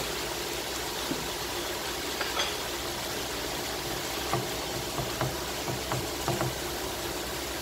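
Steady sizzling hiss of sliced chicken, shrimp and vegetables stir-frying in a pan over high heat, with a few light scrapes of a wooden spoon stirring them.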